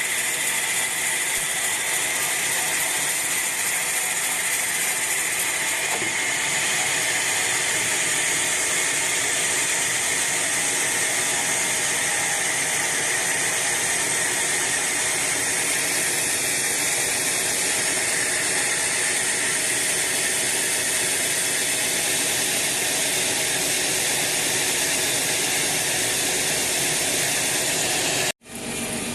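Sawmill band saw cutting through a teak log: a loud, steady, high-pitched rushing sound that breaks off abruptly near the end.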